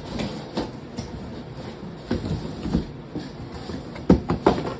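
Folding electric bike being unpacked from its cardboard box: irregular knocks, scrapes and rustles of cardboard and packing, with a quick run of louder knocks near the end.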